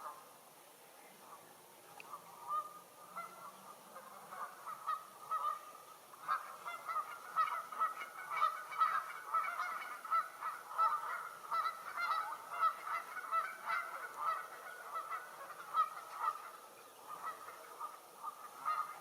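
A flock of Canada geese honking: scattered calls at first, then many overlapping honks from about a third of the way in, thinning out near the end.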